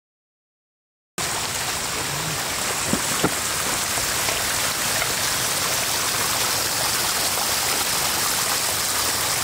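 Floodwater pouring over the broken edge of an asphalt road in a steady rush, starting about a second in. Two short knocks stand out around three seconds in.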